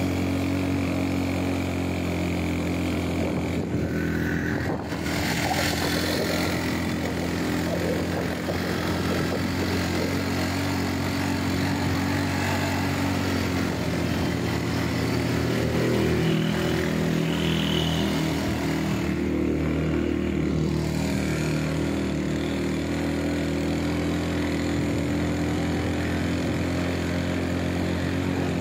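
Motorcycle engine running steadily under way, heard from the bike itself, with a steady rushing noise of wind and road over it.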